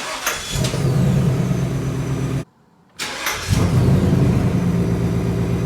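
2020 Ford Mustang GT's 5.0-litre V8 starting twice, each time catching and settling into a steady idle, with a short silent break between the two starts.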